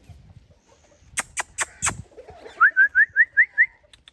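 A run of six quick, whistled chirps, each rising in pitch, about five a second, after four sharp clicks about a second in.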